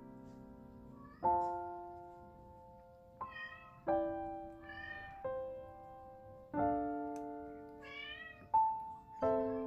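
A kitten mews three times, short high calls that bend in pitch, over background piano music playing slow, separate notes.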